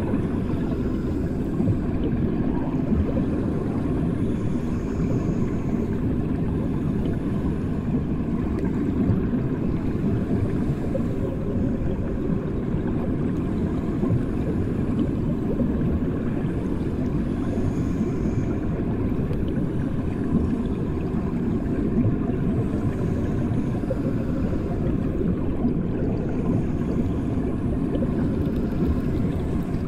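Bathwater heard underwater, the way it sounds with the ears submerged in a filled bathtub: a steady, muffled low rumble that holds at the same level throughout.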